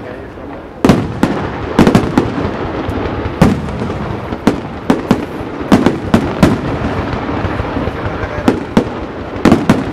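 Aerial fireworks display: a rapid, irregular series of loud bangs from bursting shells, some coming in quick clusters, over a steady crackle.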